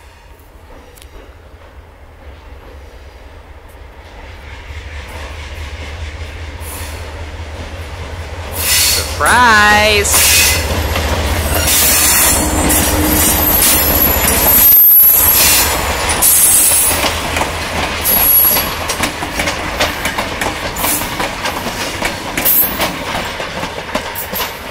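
Diesel locomotive approaching and passing close by: its engine and wheels build from a distant rumble to a loud, steady rush of engine and rail noise from about eight seconds in, lasting to the end.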